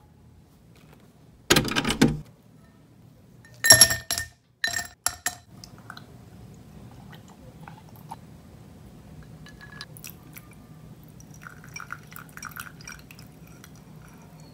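Ice cubes clattering into a tall glass in a few sharp bursts, the glass ringing after the biggest. Then comes a quieter stretch of liquid being poured over the ice, with scattered light clinks.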